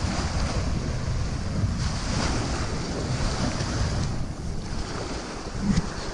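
Wind buffeting the microphone over small waves breaking on a sandy beach, with one brief louder bump near the end.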